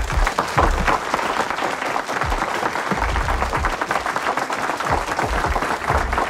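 A crowd applauding: many hands clapping steadily in a rousing round of applause, with a few low thuds underneath.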